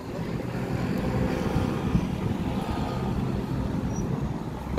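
Road traffic: a motor vehicle's engine running close by, growing louder about a second in and easing slightly near the end.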